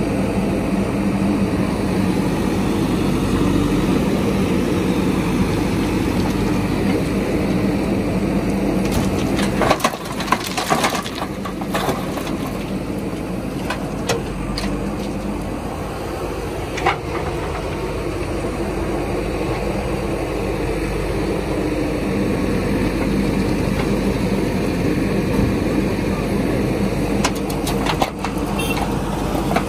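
Diesel engine of a backhoe loader running steadily. Soil and stones clatter as the bucket dumps them into the truck's steel cargo bed: a burst about ten seconds in, single knocks a few seconds later, and another burst near the end.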